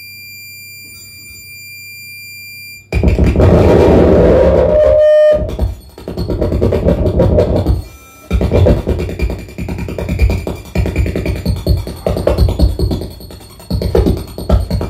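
Saxophone feedback instrument (a saxophone body driven by a built-in speaker and electronics) playing harsh noise: a faint low hum with thin steady whines for about three seconds, then loud distorted feedback starts suddenly. A brief steady tone sounds about five seconds in, and after a short gap the feedback goes on as choppy, wavering noise.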